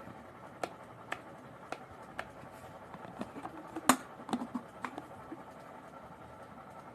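Light clicks and taps of objects being handled, about ten in all, the loudest sharp click about four seconds in, over a faint steady background.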